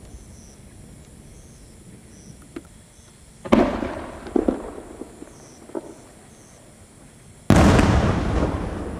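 Two loud booms from an aerial firework shell, about four seconds apart. Each starts suddenly and dies away in a long echoing rumble, with a few small cracks after the first. The second, near the end, is the louder.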